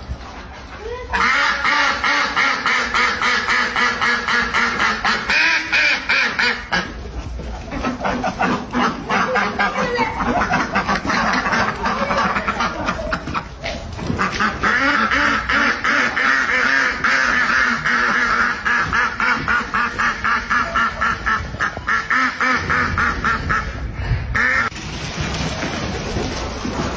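A flock of domestic ducks quacking in fast, repeated calls. The calls break off briefly a few times.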